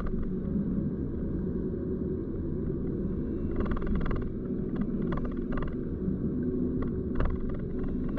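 A car driving: steady low rumble from the moving car, with a faint hum and a few short knocks now and then.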